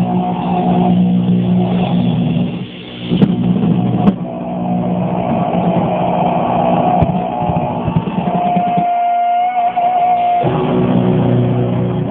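A heavy hardcore band playing in a rehearsal room: distorted electric guitar holding heavy sustained chords, with a couple of sharp drum hits early on. Past the middle the low chords drop out and a single high guitar note rings alone for about two seconds, then the heavy chords come back in.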